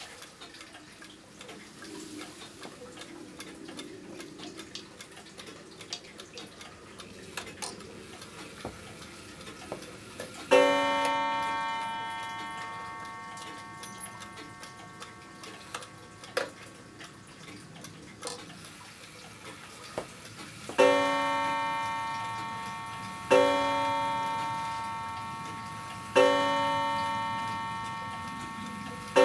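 Smiths 8-day floating balance mantel clock striking: a single ringing stroke about a third of the way in, then, from about two-thirds of the way in, a slow run of strokes every two and a half to three seconds, each ringing on and fading slowly. Before the first stroke there are only faint ticks and clicks.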